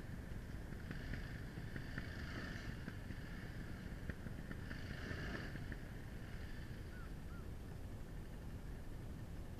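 Wind rumbling on the microphone of a camera mounted on a stationary dirt bike, with a few faint bird chirps and two brief swells of a distant, higher-pitched sound about a second in and halfway through.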